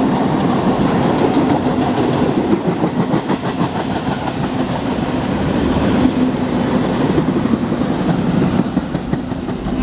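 Empty intermodal spine cars of a Norfolk Southern freight train rolling past on the rails with a steady rumble. A run of rapid wheel clicks comes over the rail a few seconds in.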